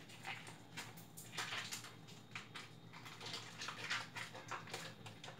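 Faint, irregular crinkling and rustling of a food wrapper being handled and opened.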